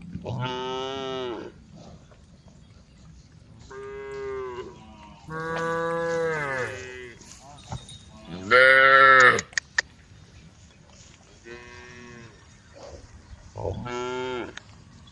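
Cows mooing: about six long calls a second or two apart, each rising then falling in pitch, the loudest a little past halfway. They are cows calling to the herd. A few short sharp clicks come just after the loudest call.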